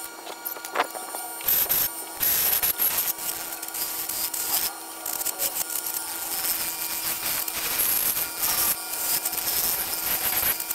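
A turning tool cutting a large wooden bowl blank spinning on a wood lathe: a scraping, hissing rasp that swells and fades with each pass of the tool, over the lathe's steady hum.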